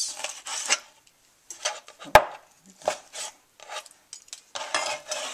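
Chef's knife cutting chicken on a cutting board: scattered short knocks of the blade on the board, one sharp knock about two seconds in, then a longer scrape near the end as the cut pieces are gathered up.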